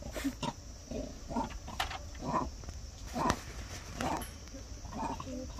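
Vervet monkeys giving short, rough calls, one about every half second to second.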